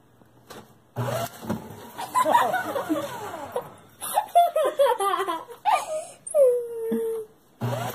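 People laughing in repeated giggling bursts, several sliding down in pitch, starting about a second in.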